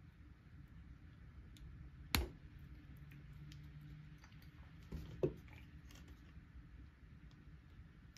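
Handling clicks and knocks from a small plastic pulley being pushed onto a tiny gear motor's shaft by hand: one sharp click about two seconds in, then two knocks a few seconds later as a pair of slip-joint pliers is taken up to press the pulley home.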